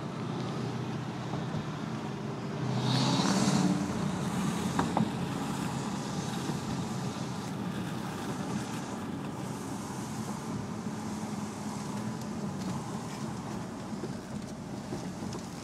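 Corvette C5's 5.7-litre V8 and road noise heard from inside the cabin while driving. The engine swells louder about three seconds in, then settles to a steady cruise.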